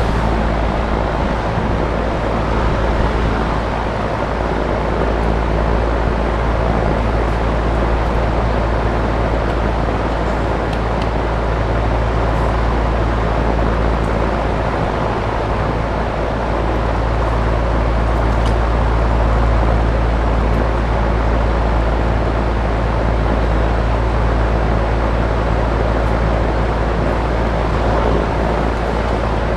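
A loud, steady rumbling background noise with a few faint clicks over it.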